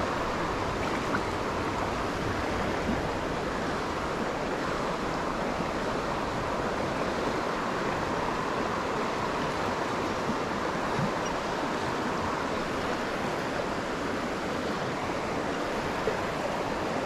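Shallow rocky trout stream flowing past close by: a steady, even wash of moving water.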